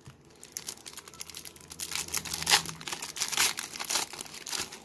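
Foil wrapper of a Pro Set hockey card pack being torn open and crinkled by hand: a run of crackling rustles, loudest in the middle.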